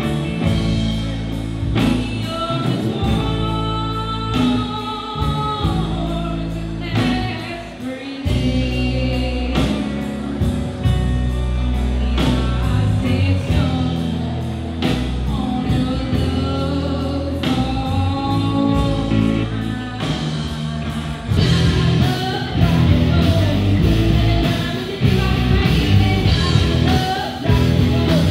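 Live rock band playing a song: a young woman sings lead into a microphone over electric guitar, bass and a drum kit. The band gets louder and fuller about two-thirds of the way through.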